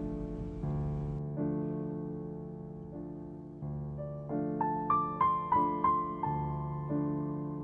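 Gentle solo piano background music: slow, held chords with a short run of higher melody notes in the middle.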